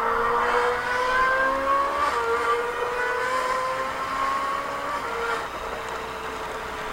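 LaFerrari V12 engine sound accelerating, its pitch climbing steadily and falling back at gear changes about two seconds in and again about five seconds in.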